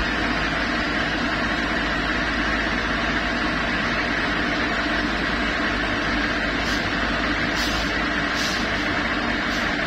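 Heavy diesel tanker truck engines running steadily at low speed as the trucks queue, with a few faint short hisses in the last few seconds.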